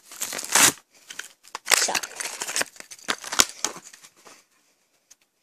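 Crinkling and tearing of a Hot Wheels car's cardboard-and-plastic blister pack being opened by hand, in irregular bursts with a sharp snap about three and a half seconds in, dying away near the end.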